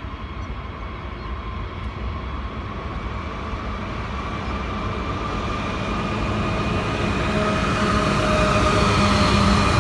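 NR-class diesel-electric locomotives hauling a steel freight train, approaching and drawing level. The engine noise grows steadily louder, with steady engine tones rising over a continuous low rumble as the lead locomotive comes alongside.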